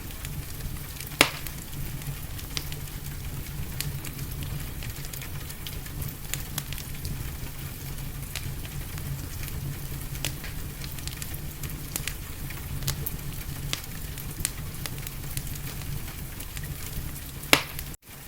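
Wood fire crackling, with scattered small pops, a louder pop about a second in and another near the end, over a steady low rumble and soft hiss. The sound cuts out for a moment right at the end.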